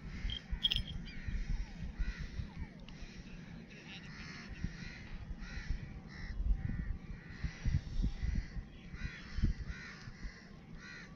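Crows cawing repeatedly, with irregular low thumps on the microphone.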